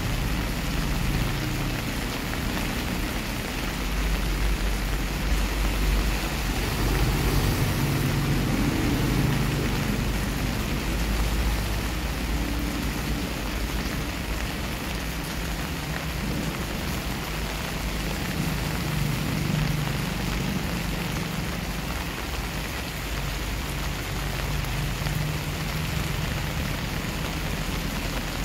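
Steady rain falling on a wet concrete driveway and garden foliage, an even hiss of drops and splashes. Thunder rumbles low under the rain in the first half, strongest about four to eleven seconds in.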